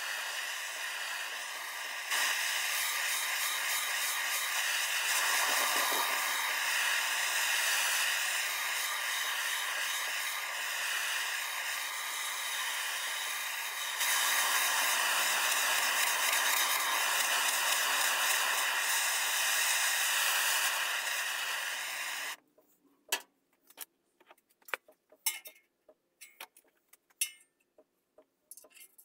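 Handheld gas torch burning with a steady hiss as it heats the sheet-steel panel between the pressed channels, to pre-stretch the metal before hammer forming. The hiss grows louder about two seconds in and again about fourteen seconds in, then stops suddenly about twenty-two seconds in. Sharp light metallic clicks and taps follow.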